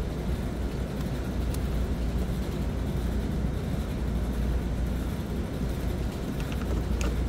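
Steady low outdoor background rumble, with a few faint short clicks near the end as the plastic contactor and its wires are handled.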